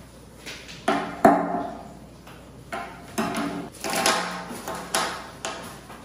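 Stream rocks being set down in an empty glass aquarium, clacking against one another and the tank: a run of sharp knocks, some ringing briefly, the loudest just over a second in.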